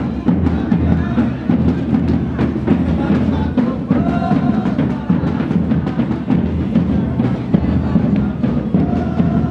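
Congada group drumming in a street procession, a dense, steady beat of drums with voices singing over it.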